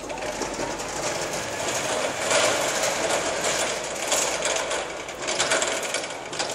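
Jungheinrich electric forklift driving and turning: a steady mechanical buzz and whine from its electric drive, growing louder a few times as it moves off and manoeuvres.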